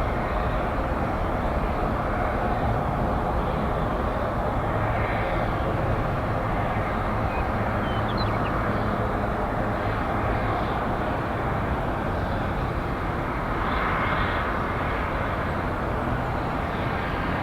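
Steady jet aircraft engine noise, an even rush that holds level throughout.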